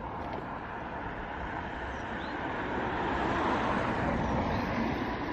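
A car passing on the road, its tyre and engine noise swelling to a peak about three and a half seconds in and then fading.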